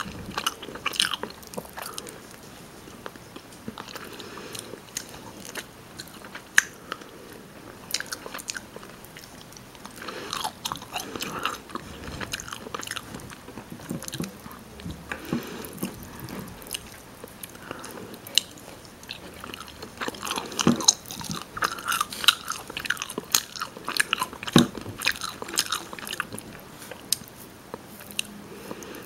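A person chewing and biting rotisserie chicken: irregular wet mouth clicks and crunches, growing busier and louder about two-thirds of the way through.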